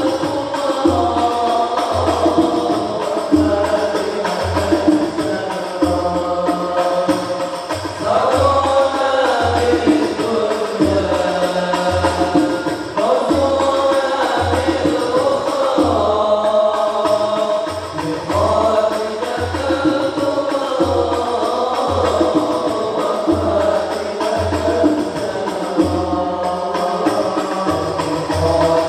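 Hadrah al-Banjari group: several male voices singing an Islamic devotional song (sholawat) together into microphones, over rebana frame drums keeping a steady deep beat.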